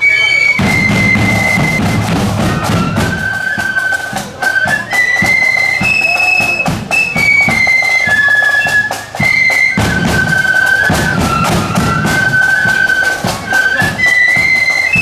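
Marching flute band playing a tune: massed flutes carry a high stepping melody over snare and bass drums, the drums coming in just after the start.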